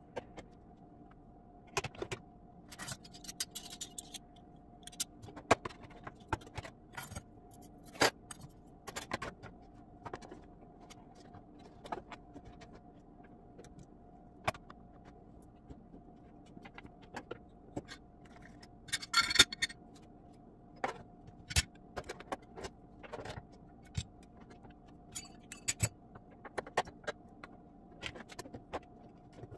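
Metal kitchen utensils clinking and clattering as they are moved around in a drawer. The knocks come scattered, with a brief rattling flurry about two-thirds of the way through, over a faint steady hum.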